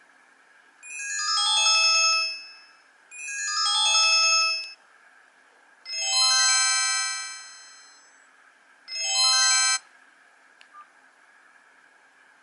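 Built-in ringtone of a Ginzzu R11D mobile phone: four chime-like phrases, each a falling run of bright notes, the third ringing out longest and the fourth cut off suddenly.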